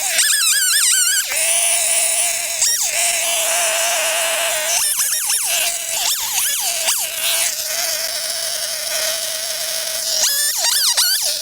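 Titan TTL759CHN two-stroke petrol chainsaw running at high revs, its steady whine dipping and sweeping back up in pitch several times through the middle of the stretch.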